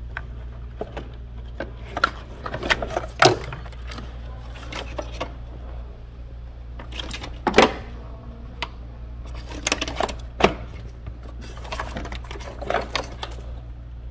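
Plastic wiring-harness connectors on a BMW engine being pried and unplugged by hand: an irregular run of small clicks and rattles, with three louder snaps a few seconds apart. A steady low hum runs underneath.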